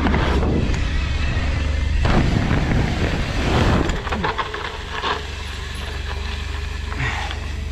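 Wind rushing and buffeting on the rider's camera microphone as a mountain bike rolls at speed down a wooden roll-in ramp and across packed dirt, with tyre noise and a few knocks. The rush is loudest for the first four seconds or so, then eases.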